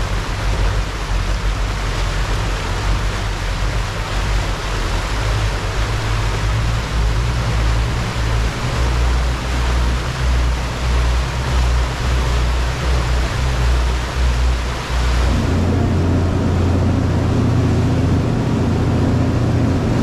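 A tour boat's engine running under way, with a heavy rush of wind and water noise over it. About fifteen seconds in, the hiss drops back and a steadier, deeper engine hum comes forward.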